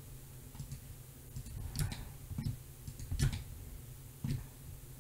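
A handful of separate clicks from a computer mouse and keyboard at a desk, a few of them louder and spread about a second apart, over a faint low hum.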